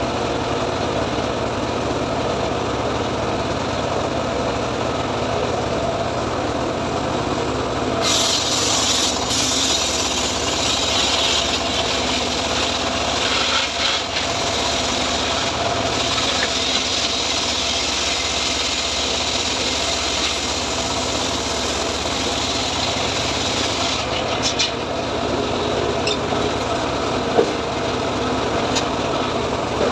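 Homemade sliding-table circular sawmill running steadily. From about eight seconds in, its blade rips lengthwise through a teak log for about sixteen seconds, a loud hiss over the motor, then runs free again.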